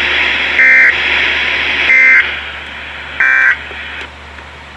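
Three short bursts of SAME digital data tones, the end-of-message code that closes a weather alert broadcast, heard over radio reception about 1.3 s apart as harsh, buzzy chirps. A steady hiss and low hum run beneath, and the hiss drops about four seconds in.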